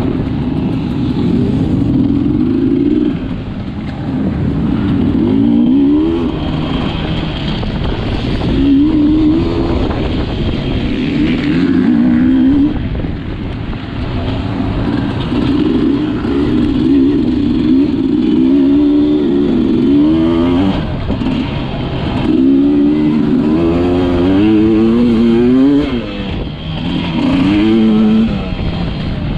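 Sherco 300 enduro motorcycle engine under hard throttle off-road. Its pitch climbs and drops back again and again as it accelerates up through the gears, with brief dips where the throttle is rolled off, about three and a half seconds in and again near the end.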